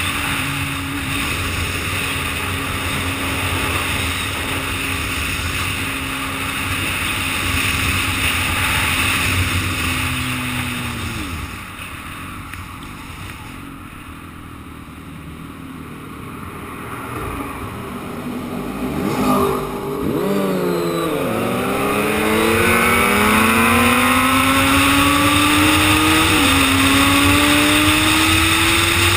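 Suzuki GSX-R sport bike's inline-four engine under way at highway speed, with wind rush on the helmet microphone. The engine note holds steady, falls away about ten seconds in and stays low for several seconds, then from about twenty seconds in the revs climb steadily under acceleration, with a short dip near the end like a gear change.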